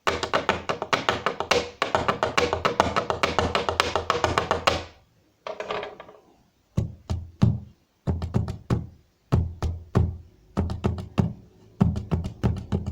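Rhythms drummed on a wooden tabletop with the hands and a pen, giving deep thumps and sharp high ticks. First a fast unbroken run of rapid taps for about five seconds, then, after a short pause, a slower beat of separate strikes.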